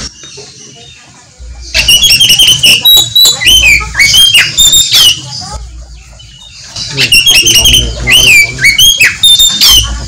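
Oriental magpie-robin (kacer) singing loud, rapid phrases of whistled notes that sweep up and down. One phrase starts a couple of seconds in and runs about three seconds; after a short pause a second phrase runs through the second half.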